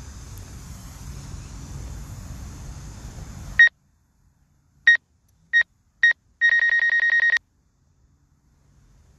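Steady outdoor background noise cuts out abruptly, then four separate high electronic beeps at one pitch are followed by a rapid string of about ten beeps within a second, like a phone or controller alert tone.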